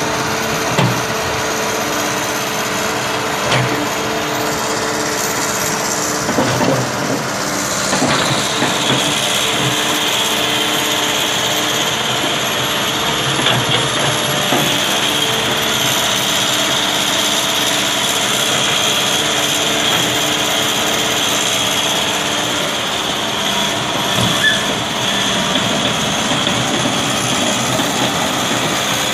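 Backhoe engine running steadily under work, with a steady high whine joining about eight seconds in.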